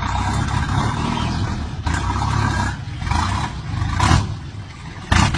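A vehicle engine running with a low rumble, broken by short loud noisy bursts about two, four and five seconds in.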